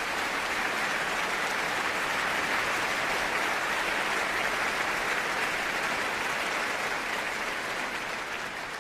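Large concert audience applauding steadily, a dense, even clapping that eases off slightly near the end.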